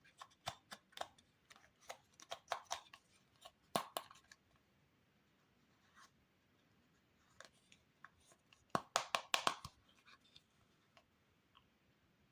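Small plastic toy kitchen pieces and their packaging handled by hand: quick runs of clicks and taps in the first four seconds and again about nine seconds in, quiet in between.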